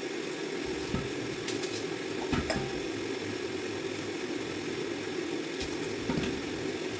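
A steady low hum runs throughout, with a few light clicks and taps as a red onion is peeled with a small knife over a steel bowl.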